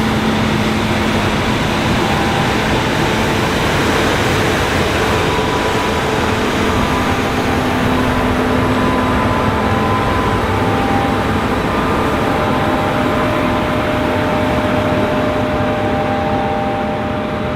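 John Deere S780 combine harvester with a Shelbourne XRS36 stripper header harvesting barley: a loud, steady mechanical running noise with humming tones that shift now and then. It eases off slightly near the end.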